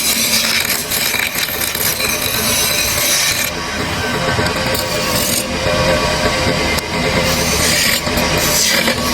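A tool cutting or abrading wood, a steady, continuous working sound without pauses.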